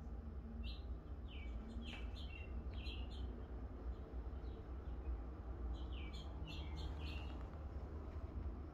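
A small bird chirping: quick, short, downward-sliding chirps in two bursts, the first starting about half a second in and the second around six seconds in, over a steady low hum.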